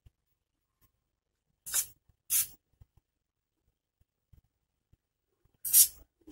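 Aerosol lubricant sprayed in three short hissing bursts, two close together and a louder one near the end, onto the dry bearing of an air-conditioner indoor fan motor. A dry bearing makes the motor drag and chirp like a cricket, and this is the fix.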